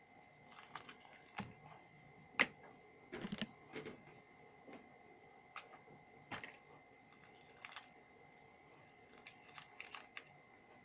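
Faint, irregular clicks and taps, about a dozen, the sharpest one about two and a half seconds in, over a faint steady high-pitched tone.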